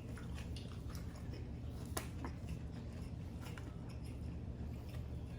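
Quiet chewing and mouth sounds of people eating a seafood boil, with scattered small clicks and one sharper click about two seconds in.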